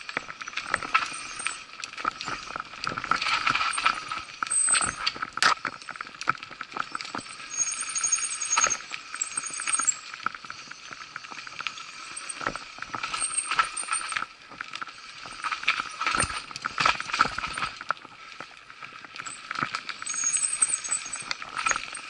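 Mountain bike ridden slowly over a rough dirt trail, rattling and clattering, with frequent irregular sharp knocks as it goes over bumps. Brief high squeaks come and go a few times.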